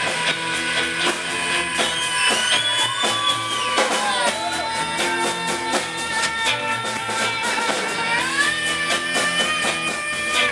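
Live rock band playing an instrumental passage: guitars, bass and drum kit with steady cymbal strokes, under long held melody notes that slide up and down in pitch.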